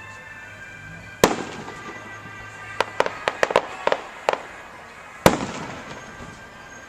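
Aerial fireworks: a loud bang about a second in, a quick string of sharp crackling pops through the middle, then another loud bang that echoes away near the end.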